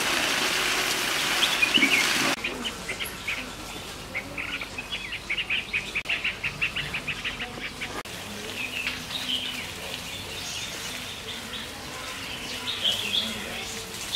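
A steady hiss for about the first two seconds, which then stops abruptly. After it, small birds chirp, one giving a quick run of repeated chirps, and scattered calls follow.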